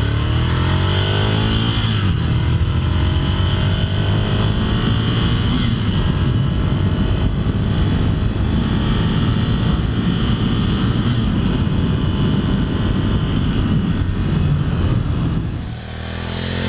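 Ducati Scrambler Desert Sled's air-cooled 803 cc L-twin pulling uphill under throttle. The pitch climbs through the first couple of seconds, then the engine holds a steady drone with wind noise. Near the end the sound drops away, and the bike is then heard approaching from the roadside.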